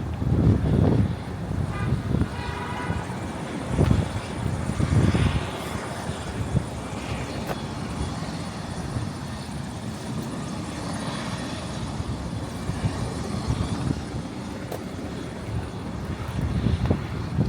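Outdoor city ambience: a steady low rumble of traffic, with wind gusting on the microphone about a second in, around four seconds and again near the end. A short run of faint repeated high notes sounds about two seconds in.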